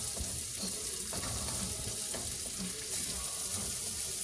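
Onions, garlic and peppers sizzling steadily in hot oil in a frying pan, with a utensil stirring them now and then.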